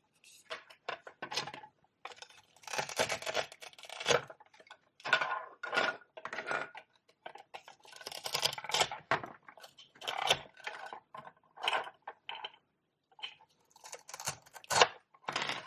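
Velcro pretend-food toys being cut apart with a toy knife and handled: short rasps of Velcro tearing, mixed with clicks and knocks of the hard toy pieces set down and tapping together.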